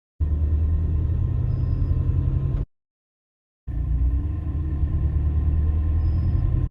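2025 Toyota Tacoma TRD Off-Road pulling away at low revs, the engine rumble loud and boosted, in two short clips. Each clip carries one brief, faint high chirp, the intermittent noise that shows up only on the first acceleration after the truck has sat, at around 1,000 to 1,200 rpm.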